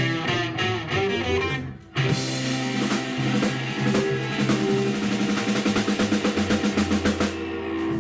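Rockabilly blues band playing live on upright double bass, hollow-body electric guitar and drum kit. The band stops dead for a moment about two seconds in, then crashes back in. Near the end a fast, even run of drum hits builds toward the close of the song.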